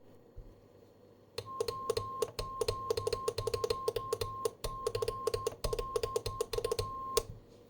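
Electronic test tones from a Storno audio test set for radio systems. A steady high beep is broken into short segments by brief gaps, while rapid clicking pulses of a lower tone run underneath. The sequence starts a little over a second in and cuts off suddenly after about six seconds.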